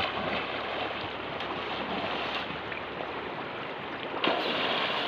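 Shallow stream water running steadily, with a short knock at the start and a louder rush of water noise from about four seconds in.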